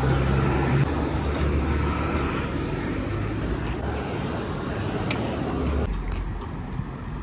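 Road traffic: a low engine rumble from heavy trucks running on the road, over a steady noisy hiss, easing a little near the end.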